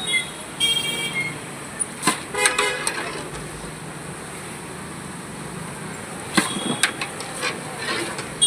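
Vehicle horns honking twice in short toots over a steady background hum, with a few sharp clicks.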